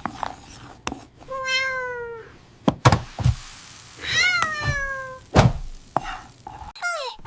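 Cat meowing three times: a falling meow about a second and a half in, a longer one that rises then falls about four seconds in, and a short one near the end. Several sharp knocks fall between the meows.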